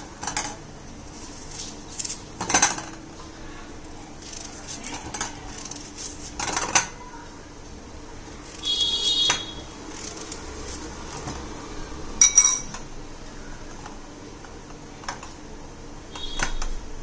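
Knife cutting raw pumpkin into chunks over a stainless steel plate, with scattered knocks as the blade and the pieces hit the plate. The steel dish rings briefly three times as chunks are set into it.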